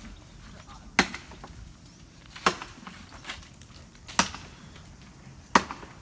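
Four sharp woody knocks, evenly spaced about a second and a half apart.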